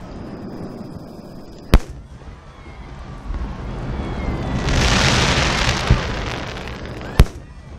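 Aerial firework shells bursting: two sharp bangs about five and a half seconds apart. Between them a crackling hiss from a shower of bursting stars swells and fades, with a smaller bang near its end.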